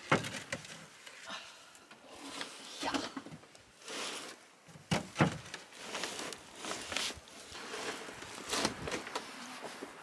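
Milled lumber boards being shifted in a pickup truck bed: irregular wooden knocks and scraping as boards are slid and set down.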